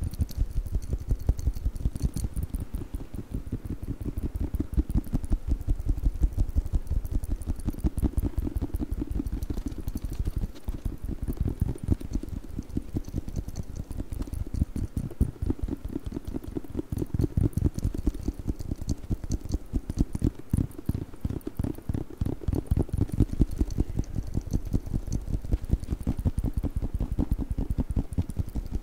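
Fast tapping on a book, many dull taps a second with a few sharper clicks, keeping up an unbroken rhythm.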